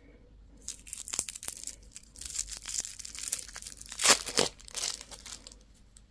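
Crinkly candy wrapper being torn open and crumpled: a run of crackling and sharp snaps lasting about five seconds, loudest about four seconds in.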